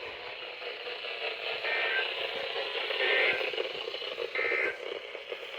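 Weather radio receiver hissing with static and crackle between broadcasts, a steady noise that brightens briefly three times.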